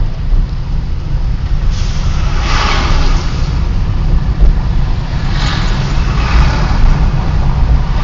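Loud, steady low rumble of road and engine noise from a vehicle driving across a bridge. Two whooshes of passing traffic swell and fade, about two and a half seconds in and again about five and a half seconds in.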